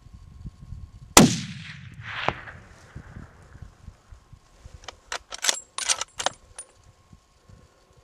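A single hunting rifle shot about a second in, its report echoing back about a second later and trailing off. A few seconds after, a quick series of sharp metallic clicks.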